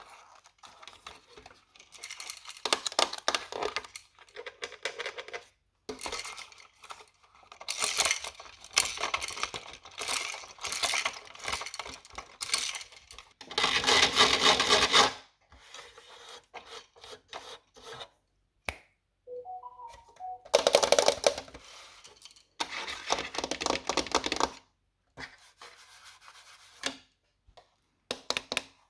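A toy playset being unboxed and handled: irregular bursts of rustling, tearing and clicking with short pauses between them, the longest and loudest burst about halfway through.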